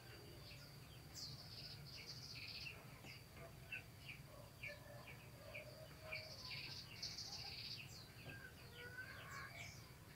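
Faint birds chirping in the background: many short, quick chirps, over a steady high thin tone and a low hum.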